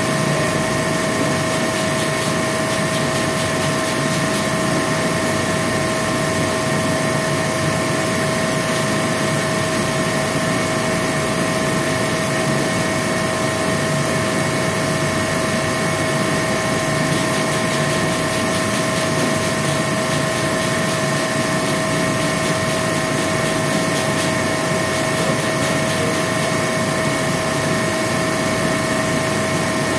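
A machine running steadily and without change, a constant hum of rushing noise with a few steady whining tones held throughout.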